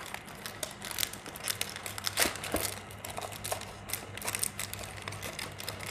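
Clear plastic shrink-wrap on a perfume box crinkling and crackling as it is pulled off by hand: an irregular run of rustles and sharp crackles.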